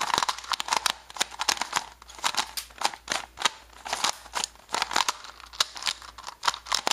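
YuXin Big Cube, a plastic 3x3 speedcube, being turned by hand: a fast, irregular run of clicks and scraping as the layers grind past each other. The turning is very sandy, typical of a new cube on its first turns.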